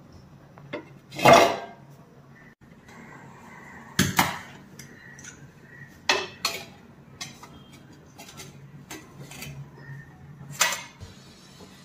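Kitchen utensils and dishes clinking and knocking, about a dozen separate clatters, the loudest and longest about a second in.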